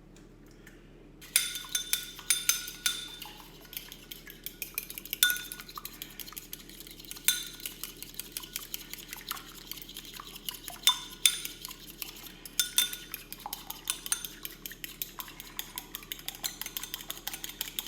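A fork or other metal utensil clinking rapidly and irregularly against a bowl as an egg is beaten into an egg wash. It starts a little over a second in and keeps going.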